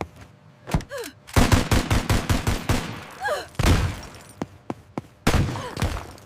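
Sound-effect gunfire: a rapid burst of shots, about ten a second, starting about a second and a half in, followed by a few single loud bangs.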